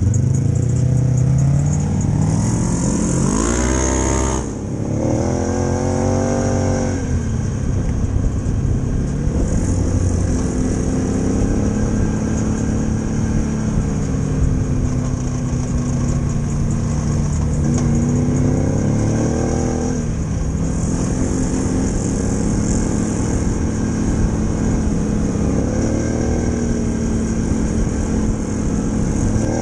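An engine-like revving sound: a steady hum whose pitch sweeps up and back down several times, in two quick rises near the start, another about two-thirds of the way through, and another near the end.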